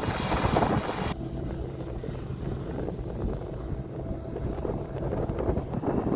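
Combine harvester engine running steadily, with wind buffeting the microphone; the wind hiss drops away about a second in.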